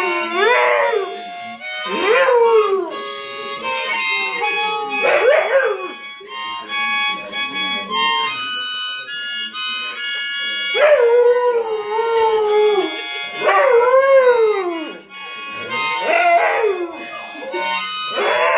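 A husky howling along to a harmonica: repeated howls, each a second or two long, rising and then falling in pitch over the harmonica's held notes and chords. For a few seconds in the middle only the harmonica plays.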